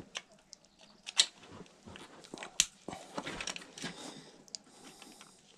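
Scattered light clicks and rustles of gloved hands and a screwdriver working at a moped carburettor, undoing a screw so the petrol drains out.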